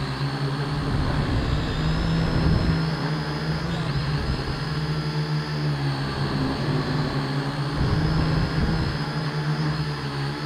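A small quadcopter's electric motors and propellers buzzing steadily as it hovers, heard up close from the drone's own frame, with slight shifts in pitch as the motors adjust.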